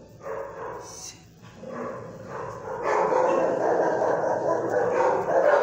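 Dogs barking in a shelter kennel block, scattered at first, then a loud, continuous din of barking from about three seconds in.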